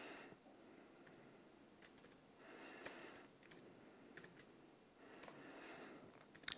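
Faint typing on a laptop keyboard: a few scattered soft key clicks over quiet room hiss.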